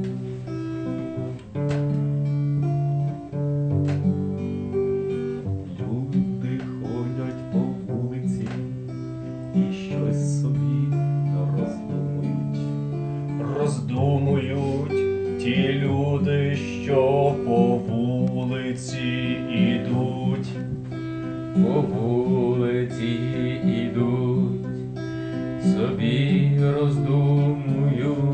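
Acoustic guitar strummed in steady, repeating chords, the instrumental intro to a song.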